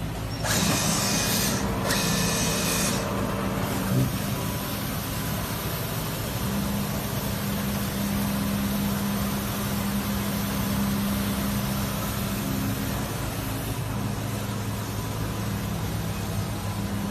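Automatic cutting machine running with a steady mechanical hum, a burst of hissing about half a second in that lasts a couple of seconds, and a single knock about four seconds in.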